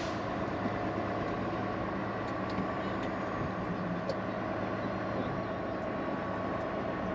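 Steady drone of a semi truck's diesel engine and road noise heard inside its cab.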